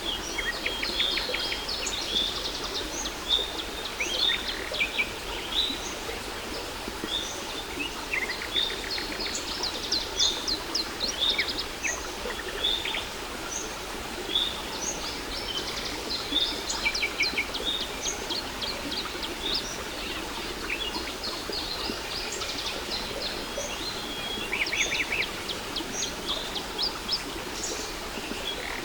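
Several songbirds chirping and trilling over and over above the steady rush of a waterfall.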